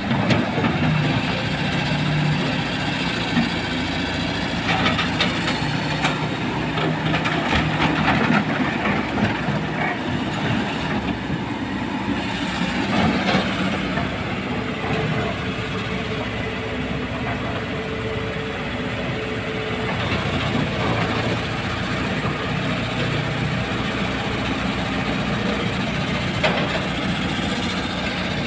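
Kobelco hydraulic crawler excavator's diesel engine running steadily as it digs and swings, with bursts of rocks and gravel rattling in the bucket and dropping into a steel dump truck bed, loudest in a cluster a quarter of the way in.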